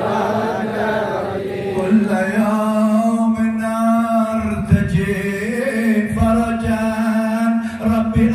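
Men's voices chanting sholawat together in a slow, sustained melody, with a long held note under the changing lines.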